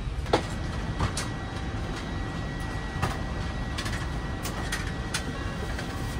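Steady low rumble of an airliner cabin's air conditioning while parked at the gate, with a faint steady whine and a few sharp clicks and rustles scattered through.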